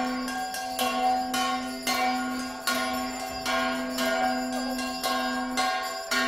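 A Hindu temple bell rung over and over during worship, about two strikes a second, each strike ringing on over a steady humming note.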